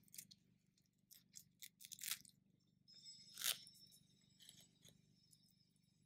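Faint handling noise of nylon webbing being worked through a metal strap buckle by hand: short rustles, scrapes and clicks, the loudest about two seconds in and again about three and a half seconds in.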